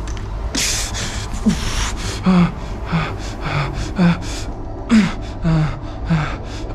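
A man panting and gasping hard, with a short breath roughly every half second to second. Many of the breaths carry a brief groan that falls in pitch. It is the heavy breathing of someone struggling against being held.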